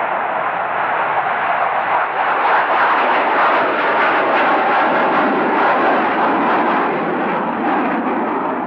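F-18 Hornet's twin jet engines at full power with afterburners lit, taking off and climbing out. A loud, steady rushing noise that grows louder about two seconds in, with a crackle running through it.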